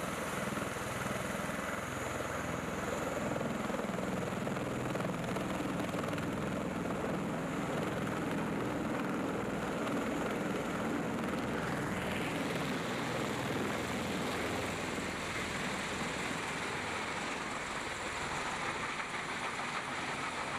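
MV-22B Osprey tiltrotor's two Rolls-Royce AE 1107C turboshaft engines and proprotors running at high power for takeoff and hover, a steady heavy rotor drone with turbine hiss. About halfway through, the hiss turns brighter.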